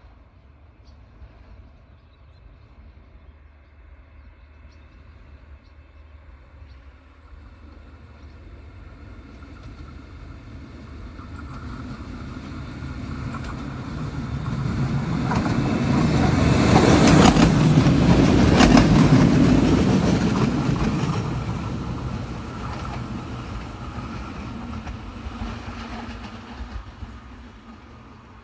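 Single-car diesel railcar approaching, passing close by and running away: the rumble of engine and wheels swells slowly to a peak about two-thirds of the way through, with a few sharp clacks of wheels over rail joints as it passes, then fades.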